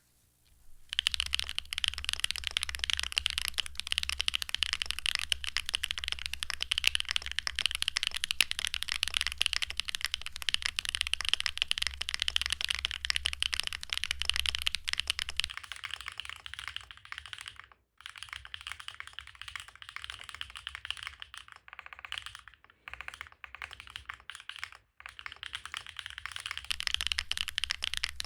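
Typing on a Neo Ergo mechanical keyboard with WingTree Yunie tactile switches: a fast, continuous run of keystrokes starting about a second in. The typing becomes sparser and softer with brief pauses in the second half, then picks up again near the end.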